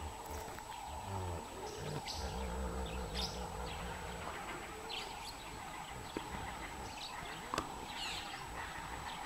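Wild birds giving short, scattered chirps over a low rumble, with one sharp click about seven and a half seconds in.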